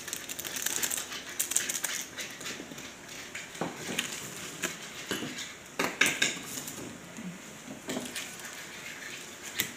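Light clatter of a metal spoon knocking against plastic bowls and the crinkle of plastic seasoning sachets being handled. There are scattered sharp clicks, the clearest about six seconds in.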